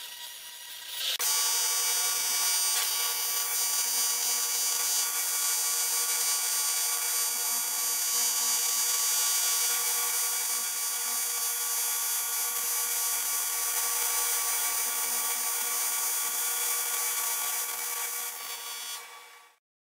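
AC TIG welding arc on aluminium buzzing steadily as filler rod is fed into the weld. The buzz starts about a second in and tapers off near the end.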